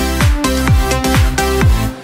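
Electronic dance music backing track: a steady kick-drum beat under sustained synth chords.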